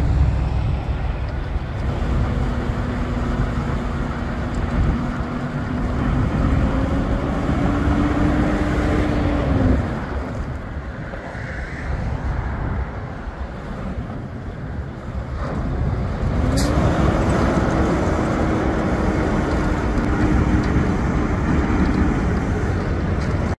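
Diesel engine of a 2016 Peterbilt 579 day-cab semi tractor driving off on dirt. The engine note climbs and holds, drops away about ten seconds in, then climbs again about sixteen seconds in and holds, over a low rumble. A brief sharp click comes about sixteen and a half seconds in.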